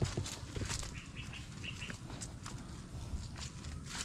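Rustling and handling noises among cucumber vines and leaves, with a quick run of small bird chirps between one and two seconds in.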